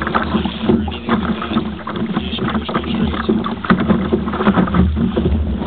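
Water lapping and slapping irregularly against a kayak hull on open sea, over a steady wind rumble on the microphone.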